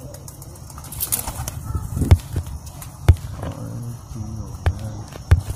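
Domestic high-flyer pigeons cooing, with wing flapping and several sharp claps.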